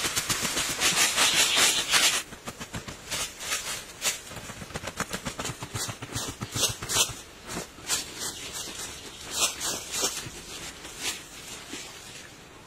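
Two people digging with hand tools in dry, stony soil: rapid scraping and chopping strokes, dense and fast for the first two seconds, then slower, irregular strikes and scrapes.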